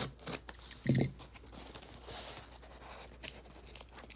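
A knife slitting and scraping through packing tape on a cardboard box, with tape tearing, in quick scratchy strokes and a louder knock on the box about a second in.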